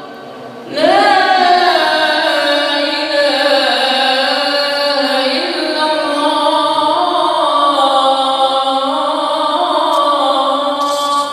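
A man singing the Islamic call to prayer into a microphone, amplified through a mosque's wall loudspeakers: one long, slowly winding melodic phrase that begins about a second in.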